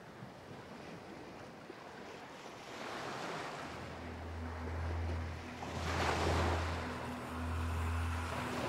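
Wind gusting in swells, with a pulsing low rumble from wind buffeting the microphone that sets in about four seconds in.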